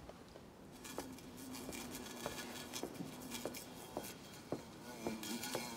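A wasp buzzing in a steady, faint low drone, caught under a drinking glass, with a few light ticks and taps scattered over it.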